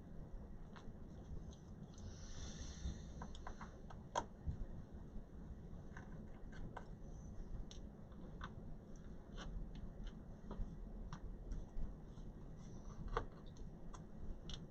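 Faint, irregular small clicks and taps of a screwdriver and screws on a laptop's bottom case as the case screws are being taken out, with a sharper click about four seconds in.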